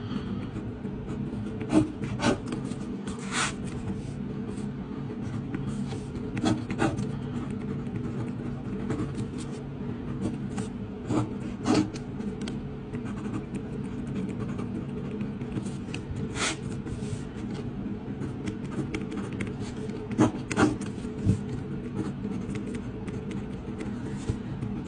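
Pen scratching on paper as marks and corrections are written, with scattered sharp ticks and short scratchy strokes. A steady low hum runs underneath.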